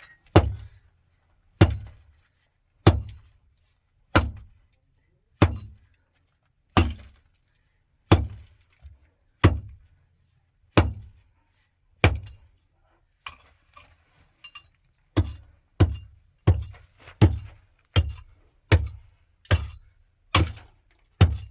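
Hammer blows, one hard strike about every second and a quarter. After a short lull they come faster, about two a second, through the last six seconds.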